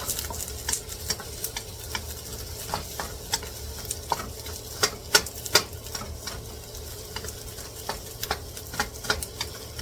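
Garlic, onion and rosemary sizzling in hot oil in a pan while being stirred, with frequent irregular taps and scrapes of the utensil against the pan over the steady hiss.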